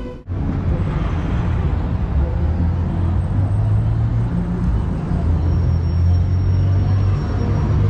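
Street traffic: a steady low engine rumble of nearby vehicles, cutting in after a brief dropout at the start.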